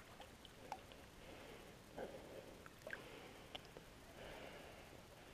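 Near silence: two soft breaths close to the microphone and a few faint ticks of water as a small pike is let go by hand at the water's edge.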